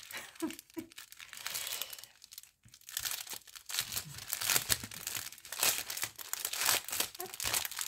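Plastic packaging crinkling and rustling as it is handled, in irregular crackles that are sparse at first and become busy and continuous after about three seconds.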